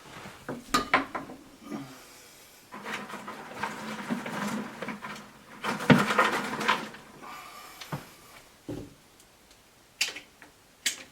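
Cut dogwood twigs being bent and wrapped around a twig ring by hand: a run of rustling and scraping in the middle, with sharp clicks of the stiff twigs before and after.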